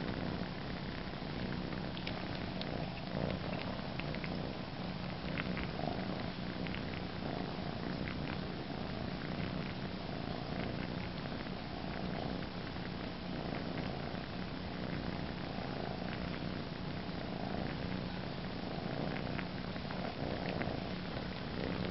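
Domestic cat purring steadily, the purr swelling and easing about every second and a half, with small clicking sucking sounds scattered through as she nurses on a blanket.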